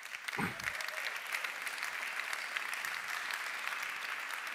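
Audience applauding in a hall: a dense, even patter of many hands clapping that starts at once, holds steady, and eases off slightly near the end.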